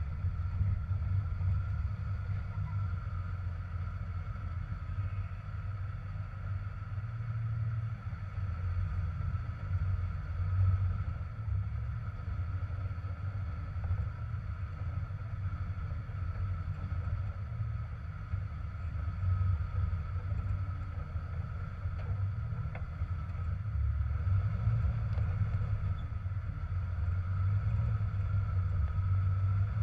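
Jeep TJ engine running steadily at low speed while crawling over rocks, a low rumble that swells a little now and then, with a faint steady high whine above it.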